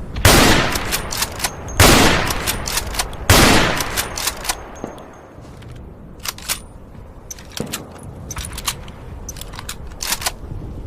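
Gewehr 98 bolt-action rifle fired three times, about a second and a half apart, each loud shot trailing off in a long echo. Then comes a run of short, sharp clicks and clacks.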